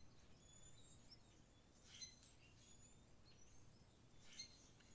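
Near silence, with faint scattered bird chirps.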